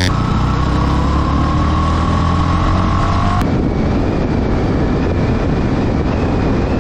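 Sport motorcycle engine and wind rush, picked up by a camera mounted on the moving bike. The engine pitch rises slightly over the first three seconds or so. After a click about three and a half seconds in, it settles into steady cruising.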